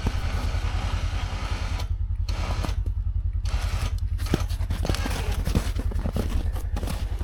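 Side-by-side UTV engine idling with a steady, low rhythmic throb.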